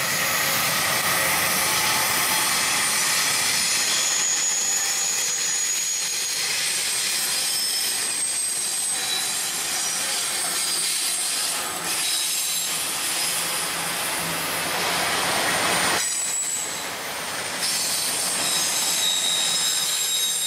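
Freight train passing close by, GE locomotives and then autorack cars rolling over the rails, with steady rolling noise and several high squealing tones from the steel wheels. The squeal eases briefly about three quarters of the way through.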